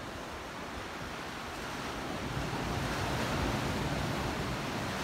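Sea waves washing onto a rocky shore, growing louder about halfway through, with wind rumbling on the microphone.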